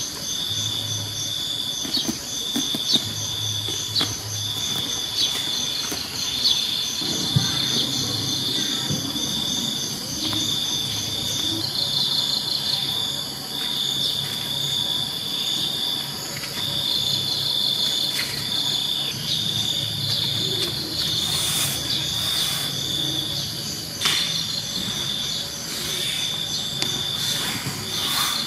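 Insects chirping in a steady chorus: a high, pulsing trill broken into short runs, with a fainter, higher pulsed call over it.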